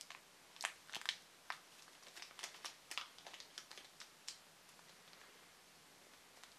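Thin plastic bag around a camera battery crinkling as it is handled, a quick run of sharp crackles that thins out after about four seconds.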